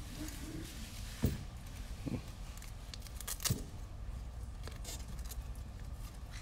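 Hands handling a small FPV quadcopter: rustling, with three sharp knocks spread over the first few seconds.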